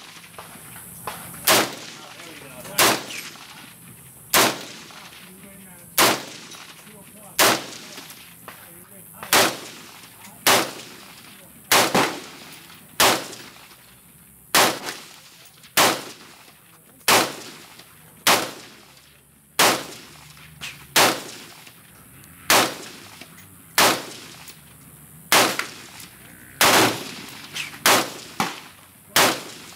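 Semi-automatic AR-15 rifle with a surplus 20-inch M16 upper firing 5.56 mm rounds shot after shot, about one shot every second and a half, coming quicker near the end.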